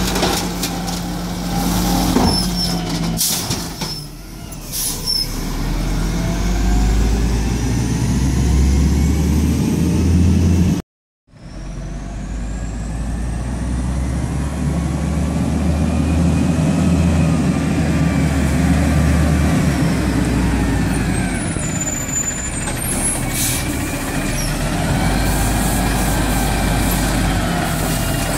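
Peterbilt 320 refuse truck with an Amrep Octo automated side-loader arm, engine running as the arm shakes out a recycling cart with a few knocks and clatters. After a brief dropout the engine rises and falls in pitch as the truck pulls along the street. Near the end the arm lifts the next cart with more clatter.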